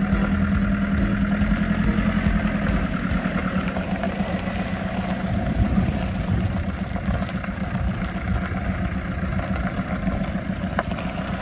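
Camper van engine running steadily, a low even hum.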